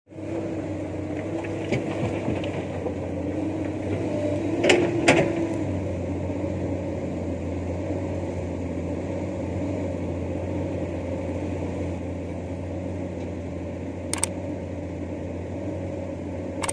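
Komatsu PC200 excavator's diesel engine running steadily while loading hard rock into a dump truck, with two sharp knocks about five seconds in and one more near the end as rock and bucket strike the truck's steel bed.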